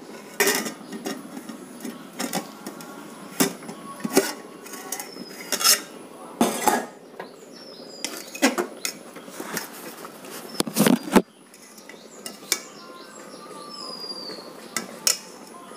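Irregular sharp clinks and knocks of hard objects, a dozen or more at uneven intervals, the loudest a little past the middle. A few faint, short, high falling chirps are heard among them.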